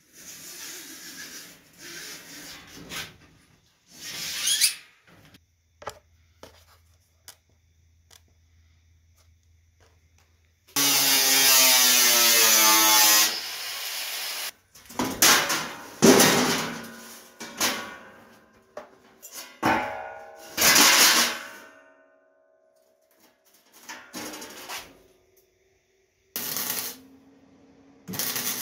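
Steel plate being worked with a hand-held angle grinder, running in several short spells with pauses between, the longest and loudest lasting about two and a half seconds.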